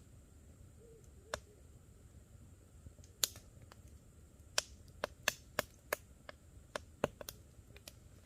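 Wood campfire crackling: sharp, irregular pops, sparse at first and coming more often in the second half, over a low steady background.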